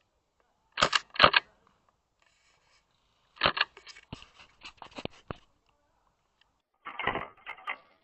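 Airsoft gun shots and sharp knocks: two loud cracks about a second in, a run of about six single shots from halfway through, and a quicker cluster near the end, with silence between.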